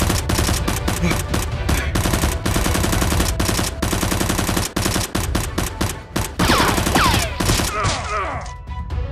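Rapid automatic-gunfire sound effects laid over Nerf blaster firing, a dense run of shots. About two-thirds through, a few falling ringing tones sound and the shots thin out.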